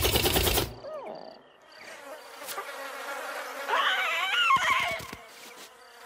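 Cartoon fireflies buzzing. At the start there is a loud, low rumbling burst, and about four seconds in a brief warbling squeal, followed by a few soft low thumps.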